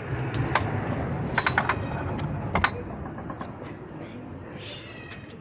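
Light metallic clicks and knocks of parts being handled on a washing machine's motor and drive-belt pulley as the belt is fitted, over a low steady rumble.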